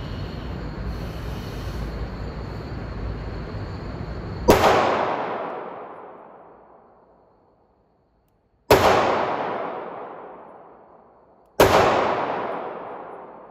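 Three 9mm shots from a Ruger MAX-9 compact pistol in an indoor range, spaced about four and then three seconds apart. Each is a sharp crack followed by a long echoing decay. Before the first shot there is a steady background noise.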